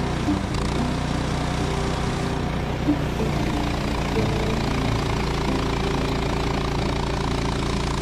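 Engine of a Woodland Mills portable sawmill running steadily.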